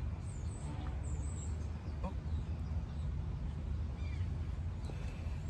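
A few faint, short bird chirps over a steady low rumble.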